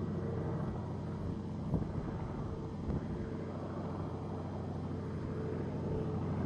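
Fokker D.VIII replica's engine droning steadily in flight, with a short knock about two seconds in.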